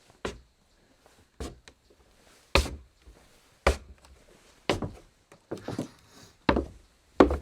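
Footsteps on a wooden floor: slow steps about one a second, each a dull knock, some landing as a quick heel-then-toe pair.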